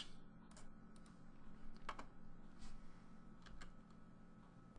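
A few faint, scattered clicks from a computer's keys and mouse buttons, over a faint steady hum.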